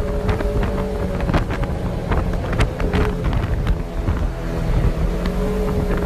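ATV engine running steadily with wind buffeting the microphone, and many sharp clicks and knocks scattered through it.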